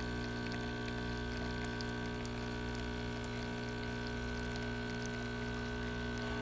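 DeLonghi Dedica EC680's newly replaced vibratory pump buzzing steadily as it pushes water through the coffee during an espresso shot.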